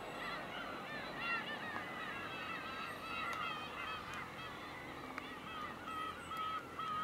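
A large flock of birds calling continuously, many short calls overlapping and rising and falling in pitch.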